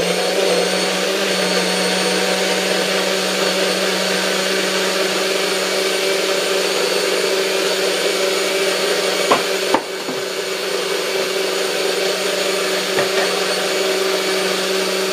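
NutriBullet personal blender motor running steadily at full speed, blending a smoothie, with a steady hum. A couple of sharp clicks and a brief dip in level a little under ten seconds in.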